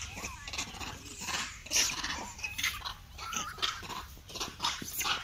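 Trapped macaque monkeys screeching and squealing in short, irregular cries, with metallic clatter from the wire-mesh cage as they climb and cling to it.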